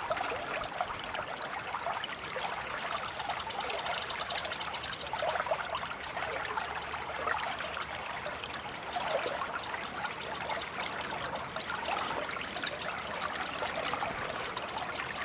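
Shallow stream water trickling and babbling steadily over stones in a small riffle.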